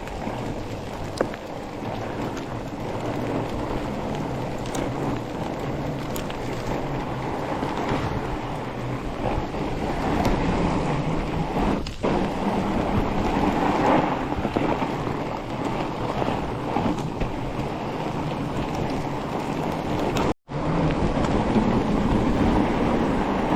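Wind rushing over the microphone and a Trek Farley 7 fat bike's wide tyres rolling fast on groomed snow, a steady loud rush. Near the end the sound cuts out briefly.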